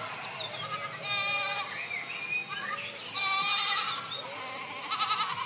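Large flock of sheep bleating, many voices overlapping, with louder rounds of calls about a second, three seconds and five seconds in.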